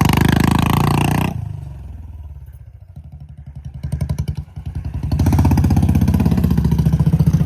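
Royal Enfield Standard 350 single-cylinder engine under throttle. About a second in it drops to a low, slow thump off the throttle, with a couple of short blips. It pulls strongly again from about five seconds in.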